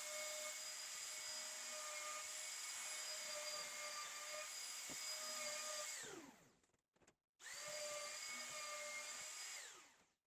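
Electric trim router running steadily with a high whine, switched off about six seconds in so the pitch falls as it spins down, then started again briefly and switched off once more near the end, trimming the hardwood edge banding flush with the workbench top.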